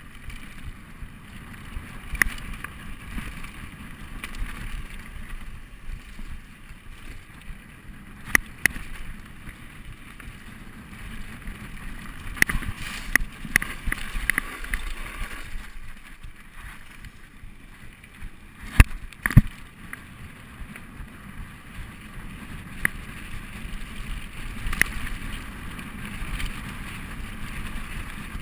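Mountain bike rolling fast down a gravel and dirt trail, heard from a camera mounted on the handlebars: a steady rumble of tyres on the loose surface, broken by sharp clacks as the bike jolts over bumps. A burst of clacks comes about halfway through, and the two loudest come close together about two-thirds of the way in.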